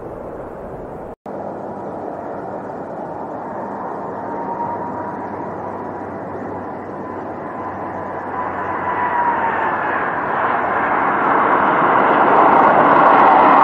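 Jet engines of an Airbus A330 airliner as it comes in to land: a steady rushing noise with a whine on top that dips slightly in pitch partway through, growing louder as the plane draws near. The sound cuts out for a moment about a second in.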